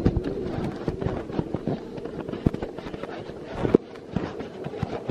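Handling noise from the camera's microphone being rubbed and bumped against clothing: irregular crackles and knocks, one louder knock near the end, over a low background murmur.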